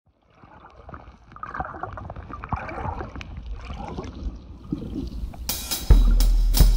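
Water lapping and splashing with small irregular clicks, fading in. About five and a half seconds in, music starts suddenly, with guitar and drums.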